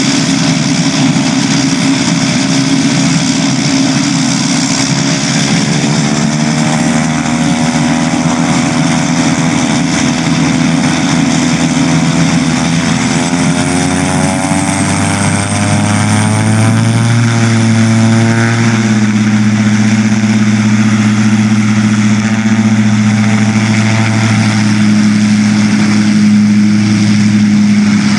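Pilatus PC-12 NG's single turboprop engine and propeller running as the aircraft taxis and turns onto the runway, the propeller tones shifting in pitch. A little past halfway the drone grows louder and stronger in the low end as power comes up.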